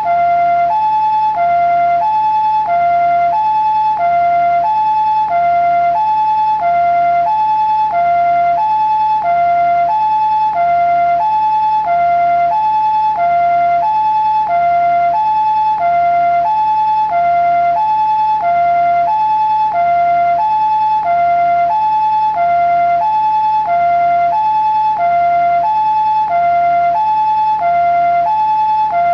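Japanese ambulance two-tone siren sounding its alternating high-low "pee-po" notes, about one high-low cycle every 1.3 seconds, steady and unchanging in pitch and loudness.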